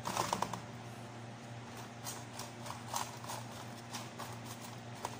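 A spoon stirring fried potato cubes in a metal baking pan, with irregular light knocks and scrapes against the pan. A low steady hum runs underneath.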